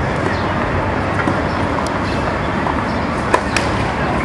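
Steady outdoor background noise. About three seconds in, two sharp knocks come a quarter second apart: a tennis ball bounced on the hard court by a player readying to serve.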